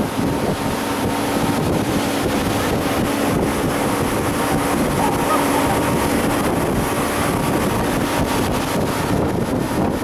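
Pontoon boat's motor running steadily at speed, with water rushing along the hull and wind buffeting the microphone.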